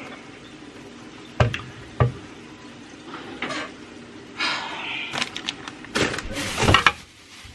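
Kitchen counter handling sounds: two sharp knocks a little over a second in, a short burst of noise about halfway, then a quick cluster of knocks and clicks near the end.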